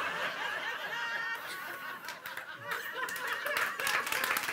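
Audience laughing, dying down over the first couple of seconds, then scattered clapping breaking out a little past three seconds in.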